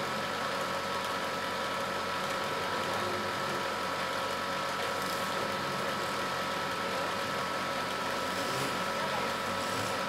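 Wood lathe running steadily with a spindle turning between centres: an even motor hum with a constant high whine.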